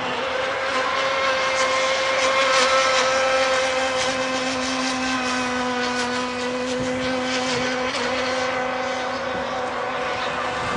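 Radio-controlled model speedboat's motor running flat out as the boat planes across the water, a steady tone with a hiss of spray underneath.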